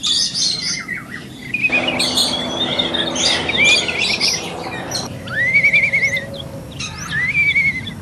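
Several aviary birds chirping and calling over one another, with a wavering whistled call about five seconds in and another near the end. A steady background hiss sits under the chirps for a few seconds in the middle.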